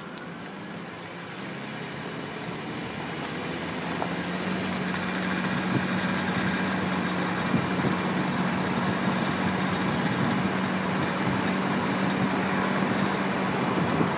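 Road, tyre and wind noise at the front right wheel of a BMW E46 320i being driven, getting louder over the first few seconds, with a steady hum coming in about four seconds in.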